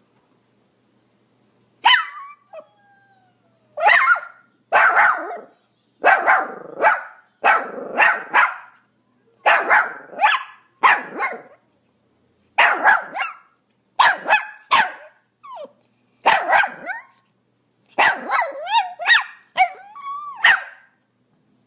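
Pomeranian barking: short, sharp barks in quick runs of two to four with brief pauses, starting about two seconds in.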